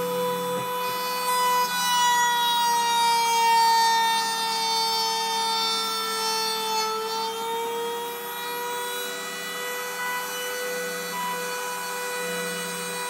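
The rotary-tool spindle of a homemade Mantis-30 CNC mill runs with a steady high whine as its bit carves a relief into wood. The pitch sags slightly for a few seconds partway through and then recovers. A lower buzz comes and goes near the end.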